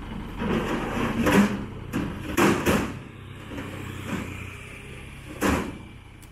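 Knocks and clanks from the rear of a flatbed tow truck as a man works its gear by hand, over the truck's engine idling. A cluster of strikes runs from about half a second to three seconds in, the loudest about a second and a half in, with one more sharp knock near the end.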